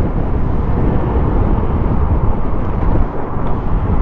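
Steady rumble of a moving vehicle: engine, road and wind noise, dense and low, with small dips in loudness about three seconds in.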